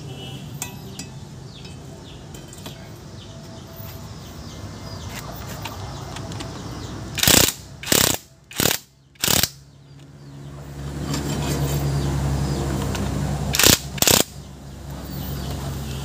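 Nanwei cordless impact wrench hammering on the centre axle nut of a wheel hub in short bursts: four quick bursts about seven seconds in, and two more near the end. Between them comes a low steady rumble lasting a few seconds.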